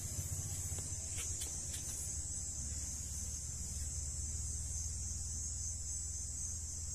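Steady high-pitched trilling of night insects, typical of crickets, over a low steady rumble, with a few faint clicks between one and two seconds in.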